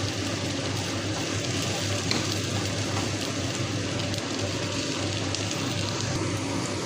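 Onions and mushrooms sizzling steadily in a frying pan, over a constant low hum.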